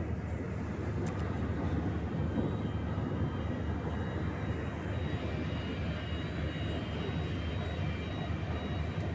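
Ferry's engines running with a steady low drone, heard from the open deck.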